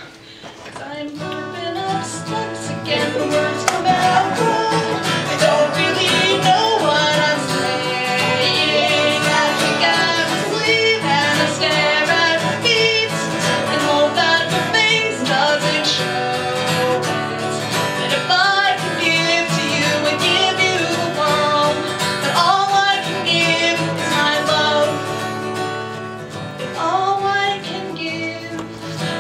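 Live band music: guitar accompaniment with a singing voice over it.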